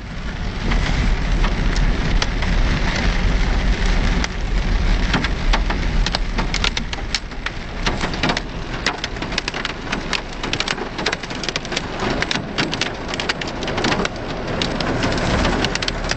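Heavy rain drumming on the roof and windshield of a 4x4, heard from inside the cab, over the vehicle's low rumble. The rumble eases about halfway through, and sharp drop impacts grow denser in the second half.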